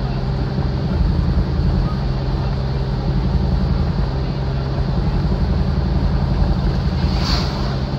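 Car engine running steadily with road and wind noise, heard from inside the cabin while driving. A brief higher sound cuts in about seven seconds in.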